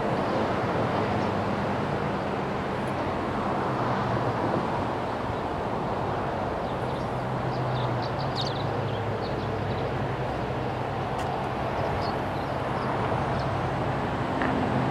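Steady rumble and hum of distant traffic, with a few faint high chirps around the middle.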